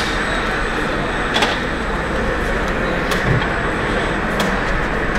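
Steady din of a large, busy exhibition hall, with a few short sharp clicks.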